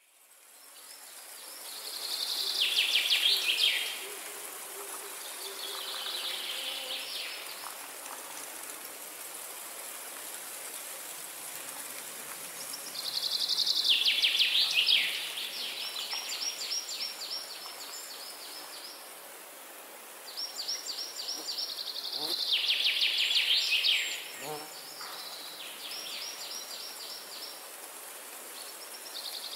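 Forest ambience: a songbird sings a fast trilled phrase that drops in pitch at its end, again and again every few seconds, over a steady hiss of wind in the trees.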